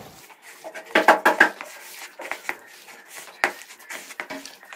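Hands kneading chicken mince with spices in a plastic bowl: irregular squelches, clicks and knocks against the bowl, loudest about a second in.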